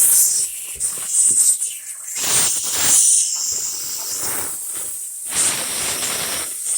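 Irregular hissing that surges and fades in uneven bursts.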